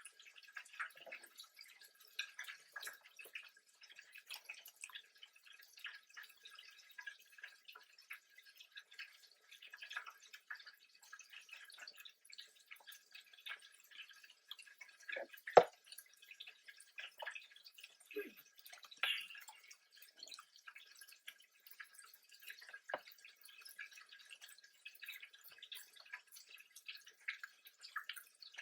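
Close-miked eating sounds: a steady run of small wet chewing and lip-smacking clicks, with one sharp, much louder click about halfway through.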